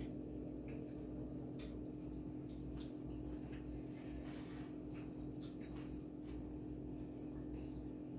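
Light, scattered clicks and taps of forks on plates as two people eat, over a steady low hum.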